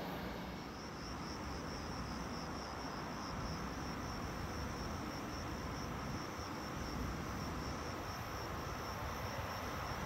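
Crickets chirping in a fast, even pulse, starting about half a second in, over a low steady rumble.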